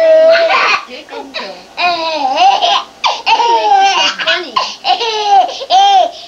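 A baby laughing in several high-pitched bursts, delighted at a hide-the-ball game.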